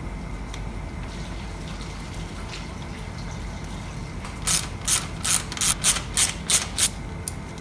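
A ratchet clicking through about nine quick rasps in a row over two and a half seconds, starting a little past halfway.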